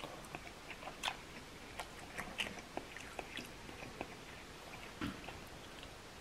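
Faint close-up mouth sounds of chewing crab meat: scattered soft clicks and smacks at an uneven pace.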